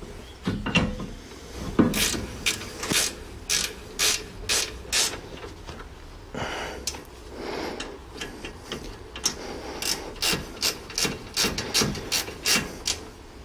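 Hand ratchet wrench clicking in repeated strokes, about two a second, as bolts are run in on a car's rear hub. The clicks ease off for a couple of seconds around the middle, then pick up again.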